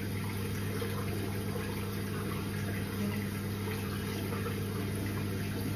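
Water running steadily from a bathroom tap into a sink while a face is rinsed with it.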